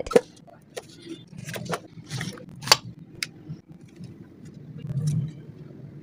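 A cardboard product box being opened and a small plastic turbine washing machine unit taken out: scattered clicks, scrapes and rustles of the packaging being handled.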